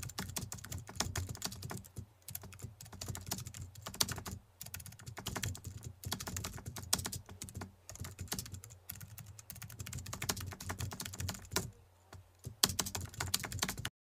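Rapid keyboard typing clicks in quick runs broken by brief pauses, stopping suddenly near the end. The clicks are a typing effect for on-screen text appearing line by line.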